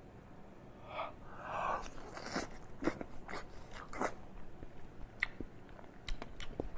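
A person biting and chewing soft sheep tail fat close to the microphone: a few soft wet mouth sounds, then a run of sharp smacking clicks, about two a second.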